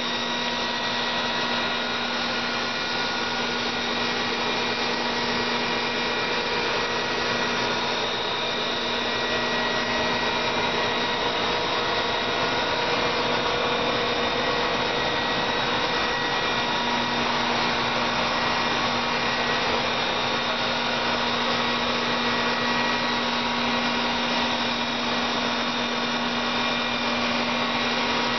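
A machine whirring steadily with a constant hum, with no change in speed.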